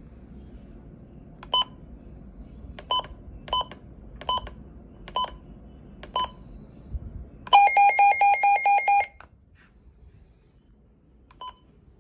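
An electronic device beeping with high, clear beeps: six short single beeps about a second apart, then a quick run of about eight beeps lasting a second and a half, and one more beep near the end.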